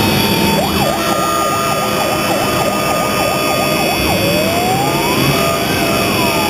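A siren sounds a fast yelp, about three up-and-down sweeps a second, with a steady horn-like tone held over it. A little over four seconds in it changes to a slow wail that rises and then falls. A steady low rumble of vehicles runs underneath.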